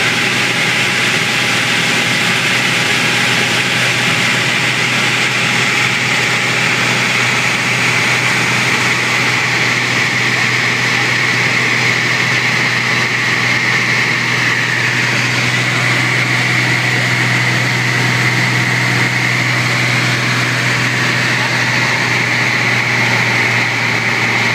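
Piper Lance's six-cylinder Lycoming engine and propeller running with a steady drone in flight, its tone sagging slightly about halfway through and then settling again.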